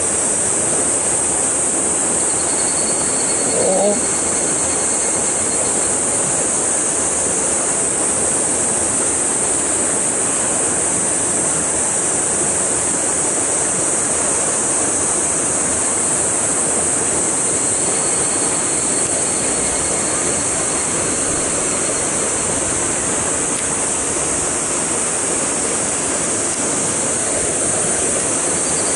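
Steady rush of a stream's inflow pouring into a rock pool, an even hiss of falling and splashing water. A brief rising sound comes about four seconds in.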